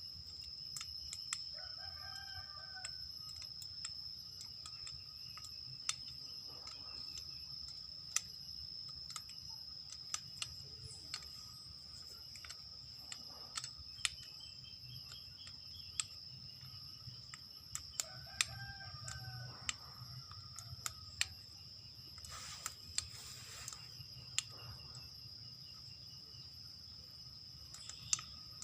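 Scattered small metallic clicks and taps of hand tools working on an angle grinder as the bolts in its gear head are undone. A chicken calls twice in the background, over a steady high insect drone.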